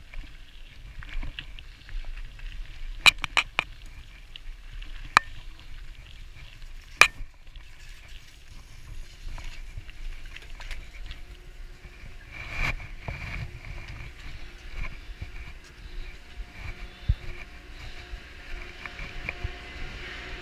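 Mountain bike rolling over gravel and paving: a steady tyre noise with several sharp clicks and knocks from the bike in the first seven seconds. From about halfway on, a steady mechanical hum of the gondola station's lift machinery joins in.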